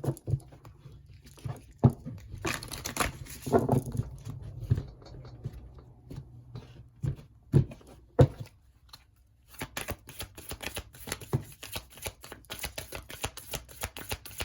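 Tarot cards being handled: scattered snaps and rustles of cards, then steady rapid shuffling of the deck from about ten seconds in.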